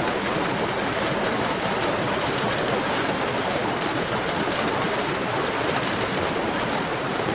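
Heavy rain falling steadily: a dense, even hiss with countless fine drop ticks.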